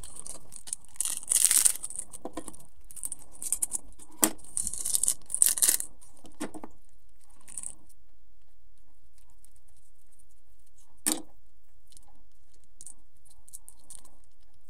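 Plastic instant-noodle seasoning sachets crinkling and being torn open in a burst of rustling over the first few seconds, with a sharp tap about four seconds in. After that it goes mostly quiet, with faint light ticks and one more sharp tap partway through.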